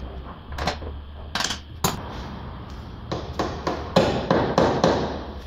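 Hammer blows on steel front-suspension parts of the car: a few spaced strikes, then a quicker run of about seven ringing blows at roughly three a second in the second half.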